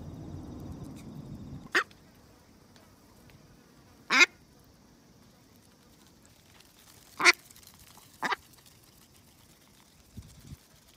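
A duck quacking four times in short, sharp single calls a few seconds apart while it feeds.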